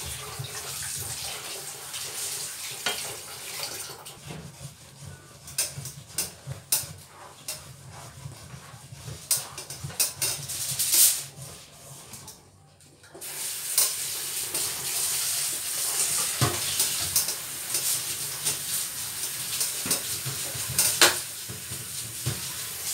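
Wooden spatulas stirring and scraping thick, sticky ube halaya and brown-sugar coconut mixture in two frying pans, a rough scraping noise broken by many small knocks of spatula on pan. It stops briefly about halfway through, then goes on.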